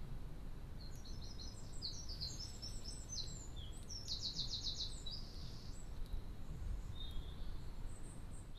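A small songbird sings a quick, high twittering song with a fast trill of about ten notes a second near the middle, then a few more notes near the end. A steady low rumble of outdoor background noise runs underneath.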